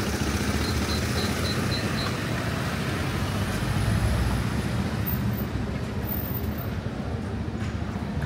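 Road traffic noise: vehicles running by in a steady rumble. A row of six short high beeps sounds during the first two seconds.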